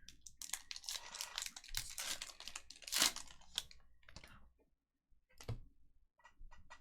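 A foil trading-card pack being torn open and crinkled, with dense crackling for about four seconds. A few light clicks follow near the end.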